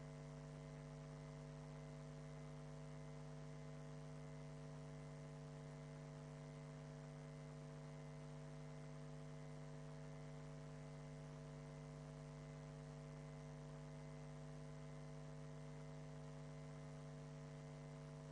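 Faint, steady electrical hum made of several constant tones, the strongest a low one, over a light hiss. It does not change throughout, and no voices are heard.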